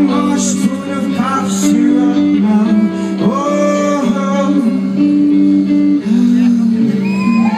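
Live rock band playing, with guitars and a singer's held, sliding notes.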